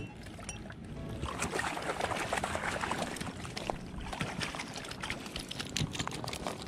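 Footsteps crunching and splashing over oyster shells in shallow water: a dense run of small clicks and scrapes.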